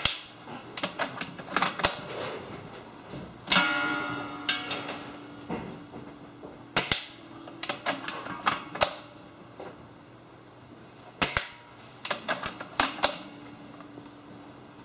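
Spring-powered bolt-action BB sniper rifle (Double Eagle M57, an L96 replica) being fired several times, a few seconds apart, each shot a sharp crack. Between shots come clusters of clicks as the bolt is worked to re-cock the spring, and one shot about three and a half seconds in is followed by a brief ringing.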